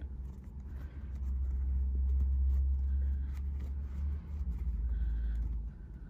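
A steady low rumble, strongest in the first four seconds and fading near the end, under faint rustling of cotton fabric strips being folded by hand.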